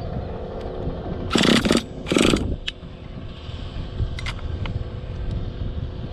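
Small .46-size nitro engine of an HPI Savage X RC monster truck running at idle, blipped to a loud rev twice in quick succession about a second and a half and two seconds in.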